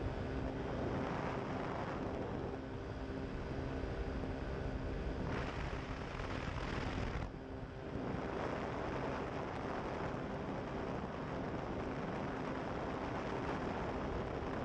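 Pterodactyl Ascender II ultralight's engine and propeller running steadily in flight, with wind rushing over the microphone; the rush swells and then dips briefly a little past halfway.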